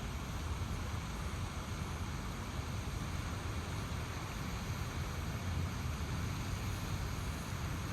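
Steady outdoor nature ambience: an even rushing noise, heaviest in the low end, that holds level throughout with no distinct calls or impacts.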